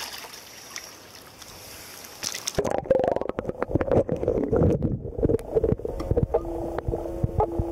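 Camera going under the river water: the airy hiss of the stream gives way, about two and a half seconds in, to the muffled underwater sound of the flow, with many knocks and clicks from handling and gravel. Near the end a steady low hum comes in.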